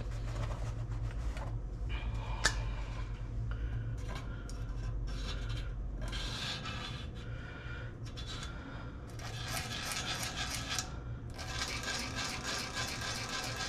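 Scratching and scraping against a transmission crossmember as bolt-hole positions are marked on it, in short irregular strokes. A low steady hum runs underneath and stops about six seconds in.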